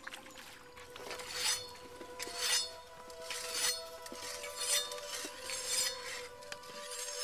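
Repeated short metallic scraping strokes, about one a second, over a held musical drone.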